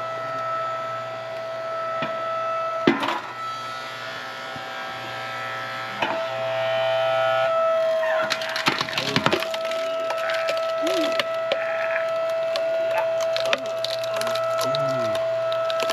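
Hydraulic log splitter running with a steady whine while a log cracks and splinters apart under the wedge. There are single sharp cracks about three and six seconds in, then dense runs of crackling and splitting wood in the second half.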